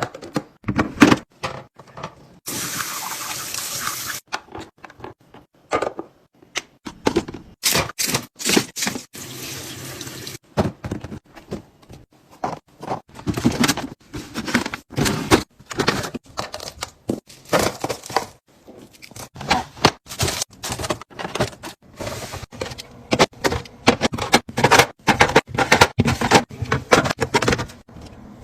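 A quick run of clicks, knocks and clinks as items are handled and set down. There are about two seconds of running or pouring water early on.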